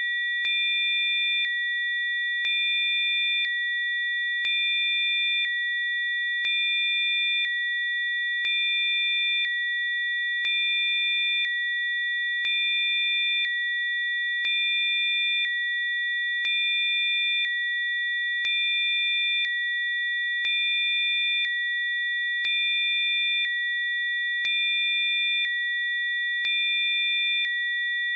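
Electronically generated pure tones from a sound-healing frequency track. Several steady high tones hold throughout, and a lower tone switches on for about a second every two seconds, giving a slow, even pulse.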